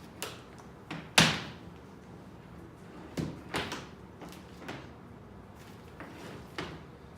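A string of short hard knocks and clacks from handling a key code-cutting machine as it is set up, before it is switched on. The loudest comes about a second in and rings briefly.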